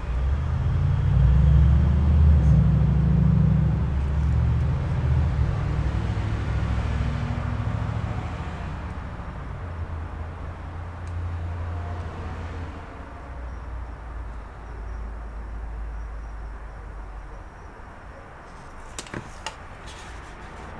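A low rumble, loudest in the first few seconds and fading slowly away, with a few sharp clicks near the end.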